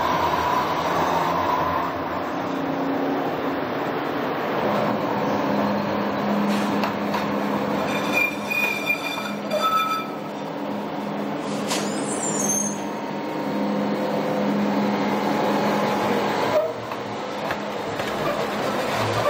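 Siemens-Duewag SD-400 light rail car running slowly on curved track with a steady low hum. Brief high wheel squeal comes from the curve about eight to ten seconds in, and a single sharp clank near twelve seconds.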